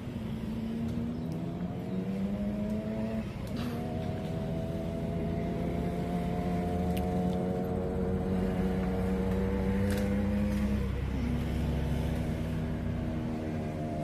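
A motor vehicle's engine running under load, its pitch climbing slowly and dropping back briefly about three seconds in, as with a gear change, then climbing again.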